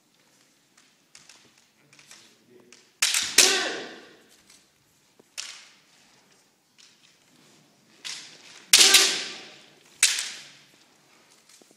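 Kendo exchange: sharp cracks of bamboo shinai and stamping feet, with two loud drawn-out kiai shouts about three and nine seconds in, echoing in a sports hall.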